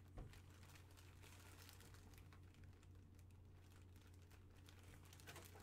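Near silence: faint crinkling of a clear plastic bag as the jersey sealed inside is handled, over a low steady hum.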